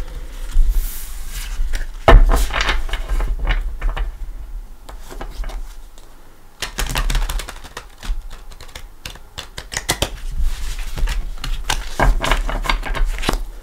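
A deck of tarot cards being shuffled by hand: a fast run of clicks and slaps as the cards strike each other, with a short lull a little past the middle.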